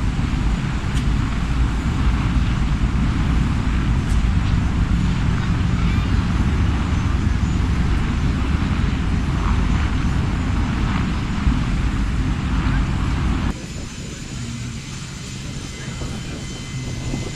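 Loud, steady noise of a fixed-wing aircraft's engines, heaviest in the low end. About three-quarters of the way through it drops suddenly to a quieter level.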